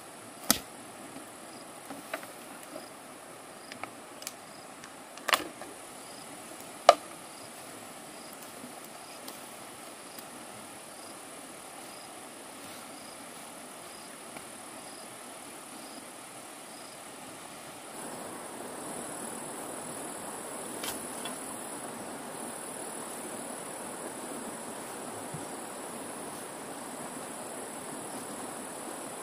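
Insects keep up a steady, high-pitched chirring. Several sharp knocks and clicks come in the first seven seconds, with one more about twenty-one seconds in.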